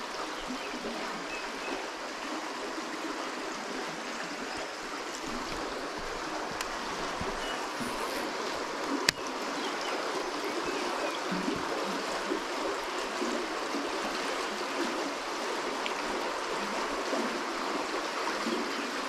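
Fast river current rushing and rippling over rocks and along a concrete bank, a steady wash of moving water. A single sharp click sounds about nine seconds in.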